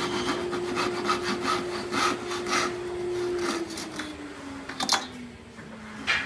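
Hand tool scraping and rasping across the end of a wooden board in quick strokes, about two a second, which stop about three seconds in. A machine's steady hum then winds down in pitch, as if switched off and coasting, with a sharp click and a knock near the end.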